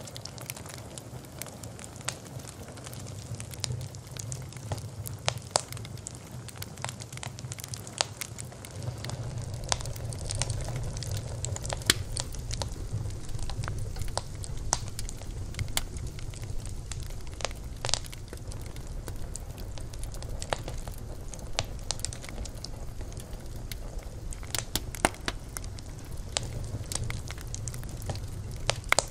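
Wood fire burning with irregular sharp crackles and pops over a steady low rumble of the flames.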